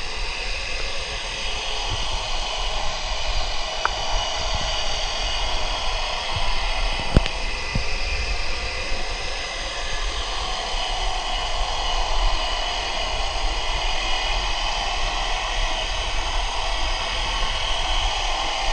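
Steady droning, hissing underwater noise picked up by a submerged camera, with a sharp click about seven seconds in.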